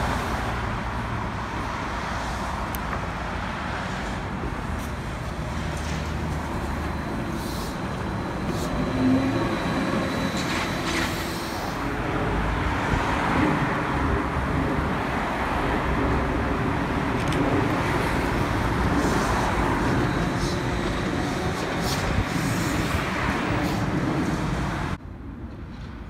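Steady city street traffic, with cars driving past and an MBTA Neoplan electric trolleybus running among them. The traffic noise drops to a quieter hum near the end.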